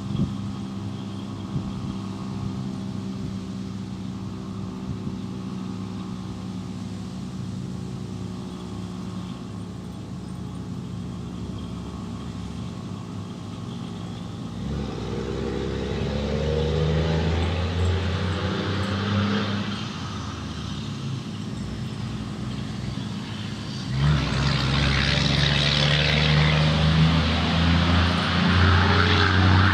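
Road traffic: a motor vehicle engine running steadily, then vehicles driving past, growing louder about halfway through and louder still near the end.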